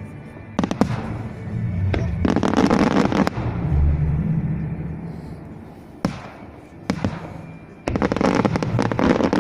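Aerial firework shells bursting: single sharp bangs about half a second in, at two seconds and around six and seven seconds, and two long spells of dense crackling, one around two to three seconds in and one from about eight seconds on.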